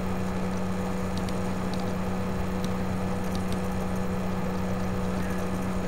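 Steady background hum with a low constant tone and a couple of fainter higher tones, and a few faint light ticks scattered through it.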